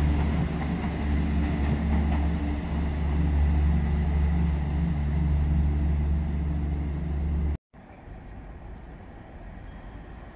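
A train at a station platform with its engine running: a steady low drone. It cuts off abruptly about seven and a half seconds in, and a much quieter, fainter train and station background follows.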